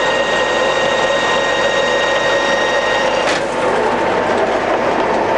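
Colchester Master 2500 centre lathe's geared headstock running steadily at about 570 RPM, a dense gear whir with a thin high whine. The whine stops about three seconds in, followed by a single sharp knock.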